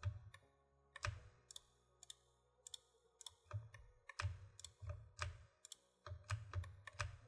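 Irregular computer mouse and keyboard clicks, about two dozen, some with a soft low thud: edges being clicked one by one.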